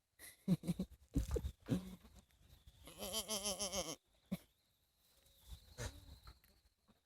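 An animal bleating: one wavering call about a second long, a few seconds in, with a fainter call near the end. A few short knocks and rustles come before it.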